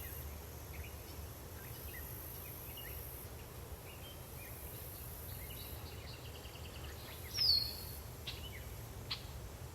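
Outdoor ambience with small birds chirping here and there and a quick trill, one louder falling call about seven and a half seconds in, over a steady low rumble.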